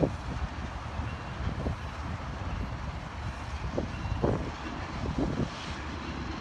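Train rolling past: a steady low rumble with irregular knocks and clanks from the wheels and cars.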